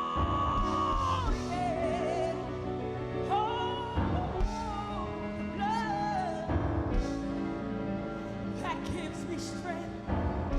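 A woman singing a slow gospel song with long, wavering, ornamented held notes over steady instrumental accompaniment.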